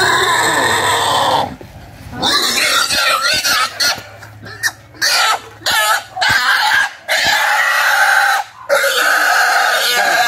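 Young pig squealing loudly and repeatedly as it is held down with a knife at its throat for slaughter. Long shrill squeals are broken by short gaps for breath, most often in the middle of the stretch.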